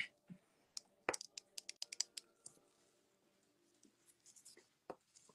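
Light clicks and taps of nail brushes and small tools being handled on a work table, with a quick run of them about a second in and a single click near the end.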